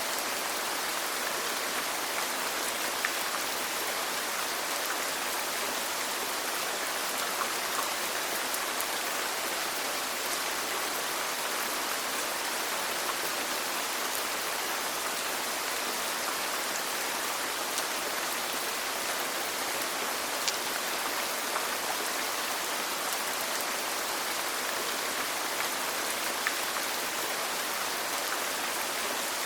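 Steady rain: an even hiss of rainfall with occasional sharper drop ticks.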